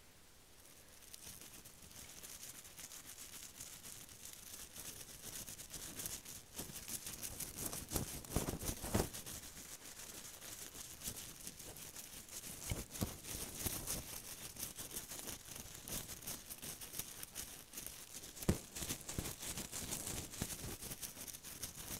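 Thin gold leaf foil crinkled and rustled between fingers right at a microphone: a fine, continuous crackle starting about a second in, with a few louder crackles in the middle and near the end.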